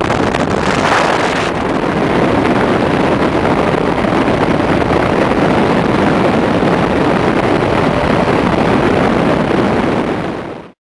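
Steady rush of engine and wind noise aboard a flexwing microlight in flight, the wind buffeting the open-cockpit microphone. It fades out quickly near the end.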